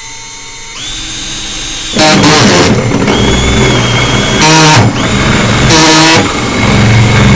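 Cordless Ryobi drill spinning up with a rising whine, then a 2 1/4-inch hole saw biting into the plastic wall of an IBC tote. The cutting noise is loud and comes in surges, about three times, as the saw works through the plastic.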